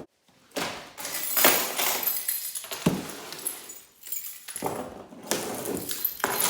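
Rustling and crinkling of a present's packaging being handled and opened by hand, with a short knock partway through.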